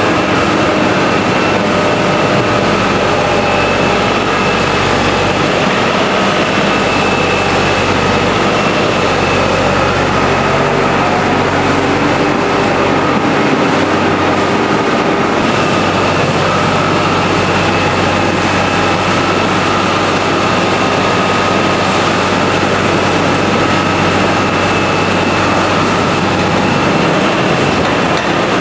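Potato-handling machinery (conveyors and a seed potato cutter) running steadily, a constant mechanical hum with a few steady whining tones; the sound shifts abruptly about halfway through.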